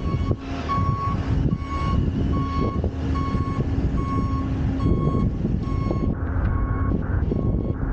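Vehicle reversing alarm beeping about twice a second in short, evenly spaced beeps, over a steady engine hum and low rumble.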